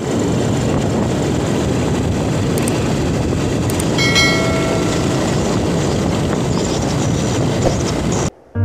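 Steady rush of wind and road noise on a moving motorcycle, with no clear engine note standing out. About four seconds in, a short electronic chime sounds briefly over it, and the noise cuts off suddenly near the end.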